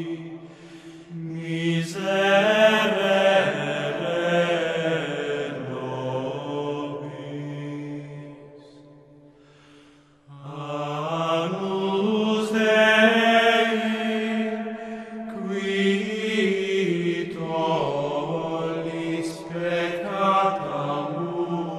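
Slow chant-like vocal music with long held notes over a steady low note. It fades down about eight seconds in and a new phrase starts at about ten seconds.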